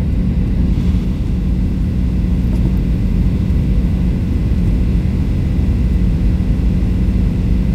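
Steady airliner cabin noise: a loud, even low drone of engines and airflow with a constant hum, unchanging throughout.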